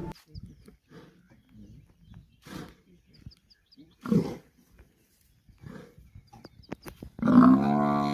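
Grunts and growls from lions and a buffalo during a kill: short scattered calls, a louder one about four seconds in, then a long, loud call with a strong steady pitch starting about a second before the end.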